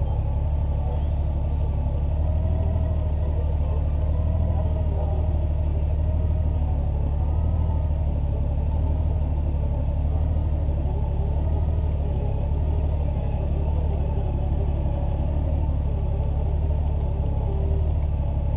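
Steady low rumble of riding on the road, with wind and road noise on a bike-mounted camera and no change in pace.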